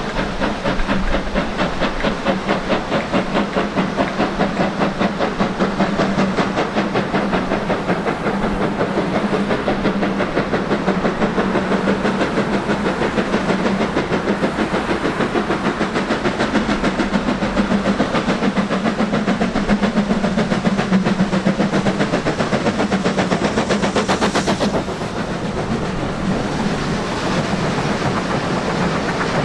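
Steam locomotive hauling a train past at close range, its chimney exhaust beating in rapid, even puffs with steam hissing and a steady low hum underneath. The beats ease somewhat about 25 seconds in.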